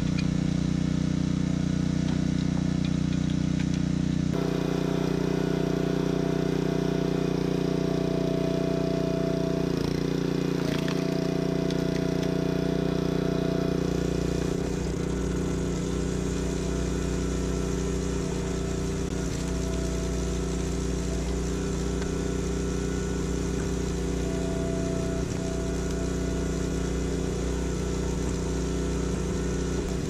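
Small gasoline engine on a hydraulic log splitter running steadily, with a higher tone coming and going several times as the splitter works the wood.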